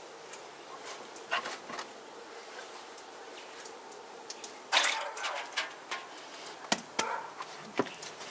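Cloth rustling and soft handling noises as a cotton sheet is drawn back off risen bread dough balls and the dough is lifted. There are two short bursts of rustling, the louder one about halfway through, then a few sharp clicks near the end, over a faint steady hum.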